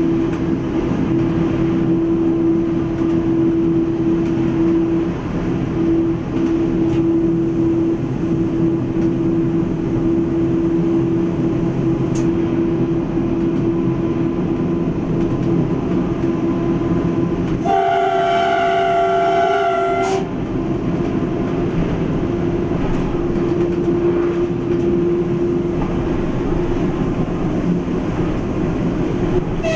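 PESA ATR 220 diesel railcar running steadily, heard from the driver's cab. Its horn sounds once, a single blast of about two and a half seconds, a little past halfway through.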